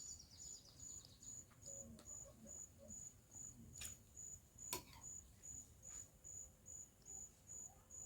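Faint cricket chirping in an even rhythm of about two to three high chirps a second, with a sharp click or two around the middle.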